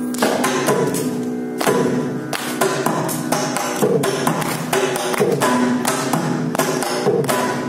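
Mridangam being played: a fast, unbroken stream of sharp, ringing drum strokes with changing accents.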